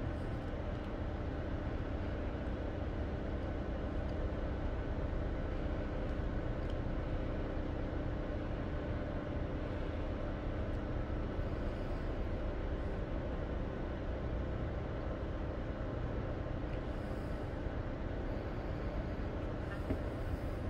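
Steady low drone of the cruise ship Norwegian Dawn's engines and onboard machinery as it approaches, with a constant hum tone.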